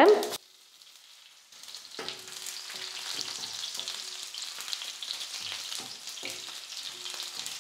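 Crushed garlic frying in hot oil with cumin seeds in a kadai, a steady high sizzle that starts about a second and a half in, stirred with a wooden spatula that knocks lightly against the pan.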